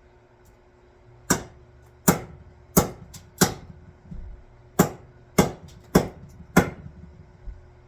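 About eight sharp blows struck at a steady pace, roughly one every two-thirds of a second, each ringing briefly, with a couple of softer thuds between them: an axe head being driven and seated onto its new wooden handle.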